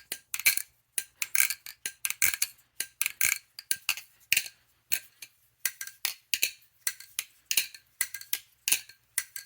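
Balisong butterfly knife being flipped: the handles and blade click and clack against each other in quick, uneven runs of sharp clicks, several a second, each with a brief ring.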